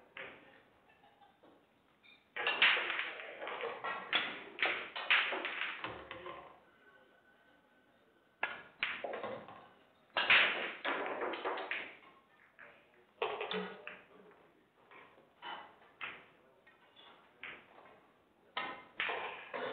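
Pool balls clacking on a pool table. A cue tip strikes the cue ball about two seconds in, followed by a quick run of ball-on-ball clicks and cushion knocks lasting several seconds. More clusters of sharp clacks follow, with scattered single clicks near the end.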